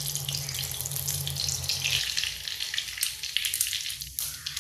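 Whole spices, bay leaves and cumin seeds, sizzling in hot mustard oil in a metal kadhai: a dense crackle of many small pops.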